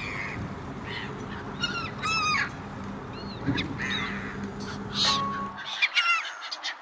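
Gulls calling in repeated short harsh cries over a ferry's steady low engine hum. The engine hum drops away near the end while the calls go on.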